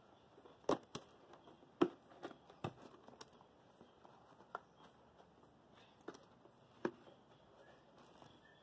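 Faint handling sounds as a toilet paper roll is worked into a homemade holder cut from a plastic fabric softener bottle: scattered light taps and knocks, the loudest about a second in, about two seconds in and near the end.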